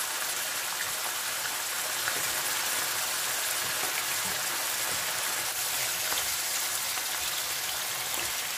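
Chicken livers sizzling steadily in very hot oil in a frying pan over high heat, with faint crackles of spitting fat.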